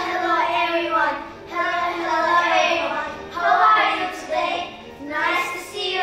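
A child singing a song in phrases, with short breaks between them.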